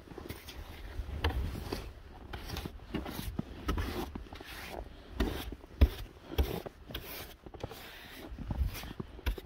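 Snow brush sweeping snow off a car's body: a series of quick, irregular brushing and scraping strokes, with one louder thump a little before the middle.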